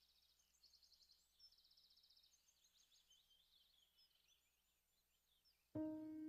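Near silence with faint birds chirping and giving short rapid trills. Near the end a sustained keyboard note of the background music comes in suddenly.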